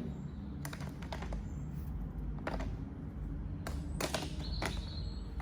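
Small manicure tools and the plastic toolbox being handled, giving about half a dozen scattered light clicks and taps over a steady low hum.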